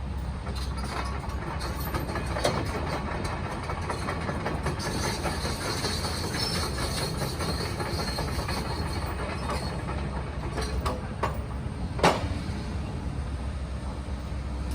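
Hydraulic excavator engine running steadily while the machine crunches and clanks through demolition debris, with many irregular knocks and rattles and one sharp, loud crack about twelve seconds in.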